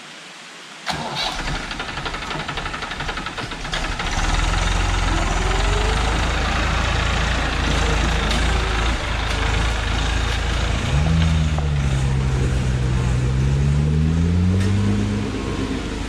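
Massey Ferguson 241 DI tractor's three-cylinder diesel engine running as it drives. The sound comes in suddenly about a second in and gets louder from about four seconds. In the last few seconds the engine is revved, its pitch rising and falling.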